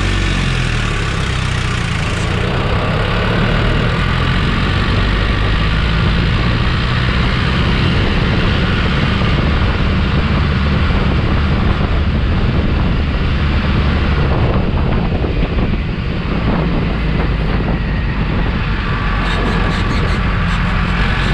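Mahindra Arjun 555 tractor's diesel engine running steadily at full throttle while driving on the road, heard close up from the seat beside the driver. A faint fast rattle joins in near the end.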